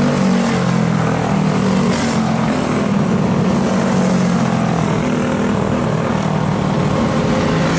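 Racing karts' small engines running hard at high revs, several overlapping as they pass on a dirt oval. It is a steady buzz whose pitch wavers slightly.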